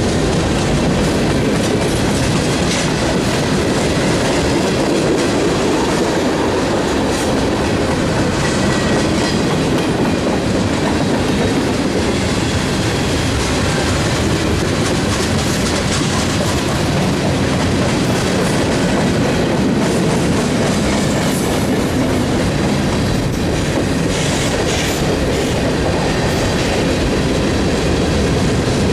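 Freight cars of a long mixed freight train (covered hoppers, tank cars, boxcars) rolling steadily past close by: a continuous rumble of steel wheels on rail, with light scattered clicks as the wheels pass over the track.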